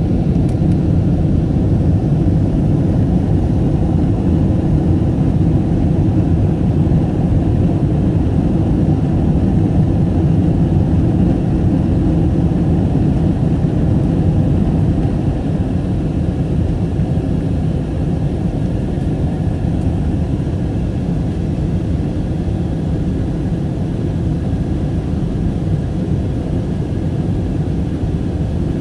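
Steady low drone of an Airbus A321's engines and airflow, heard inside the passenger cabin in flight. It eases a little in loudness about halfway through.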